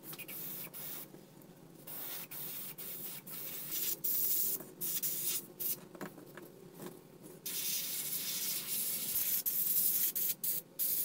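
Gravity-feed airbrush spraying paint, its hiss starting and stopping in short spurts, then in longer runs of a couple of seconds, as the trigger is worked on and off.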